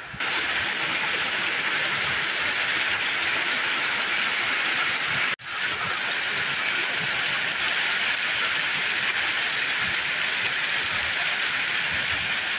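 Heavy rain pouring down steadily, with a very short break about five seconds in.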